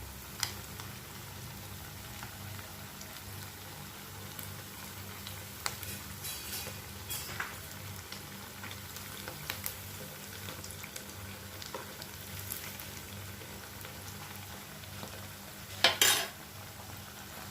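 Chicken, semolina and potato snacks deep-frying in hot oil, a steady sizzle, with a few light clicks of a utensil turning them in the pan and one louder clatter near the end.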